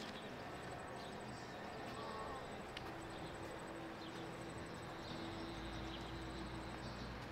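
Outdoor city street ambience: a steady background wash of distant activity and faint voices, with a faint high, rapid ticking throughout and a low steady hum for a few seconds from about three seconds in.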